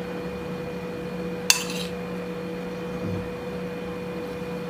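A metal kitchen utensil clinks once against a dish about a second and a half in, with a short ring after it, over a steady faint hum.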